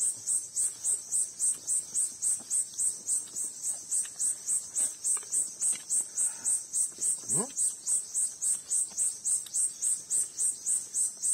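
An insect chirping in a steady, fast rhythm of about four high-pitched chirps a second.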